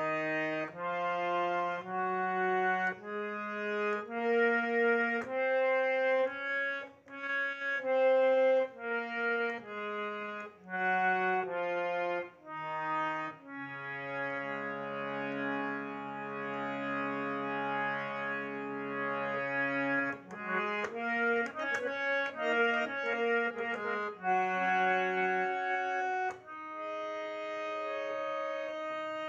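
Hand-pumped harmonium playing a slow melody of separate notes, with a long held chord about halfway through and quicker notes after it. The front jali (sound grille) is closed, which softens its sound.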